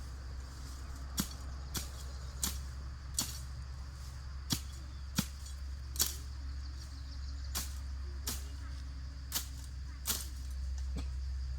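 A series of about a dozen sharp knocks or taps at uneven intervals, roughly one a second, over a steady low hum.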